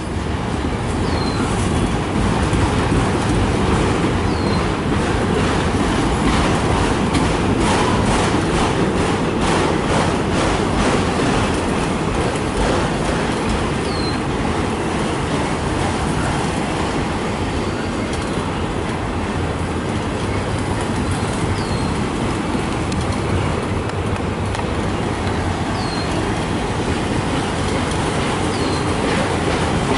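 Freight train of autorack cars rolling steadily past at close range: a continuous rumble of wheels on rail with clickety-clack, and a few brief high squeals from the wheels.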